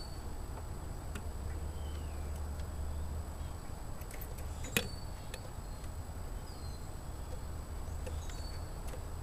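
Handling of a homemade phonograph tone arm, a record needle set in a bottle cap with a plastic-bottle horn, as it is lowered and adjusted over a record: one sharp click about halfway through and a few lighter ticks, over a steady low rumble, with faint high chirps.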